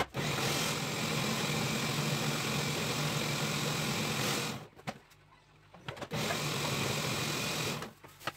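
Electric food processor chopping fresh mint leaves: the motor runs steadily for about four and a half seconds, stops, then runs again for about two seconds.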